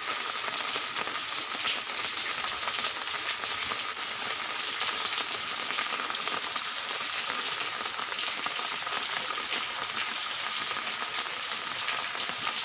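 Steady rain falling on a concrete rooftop and plant leaves: a dense, even hiss of many small drop ticks.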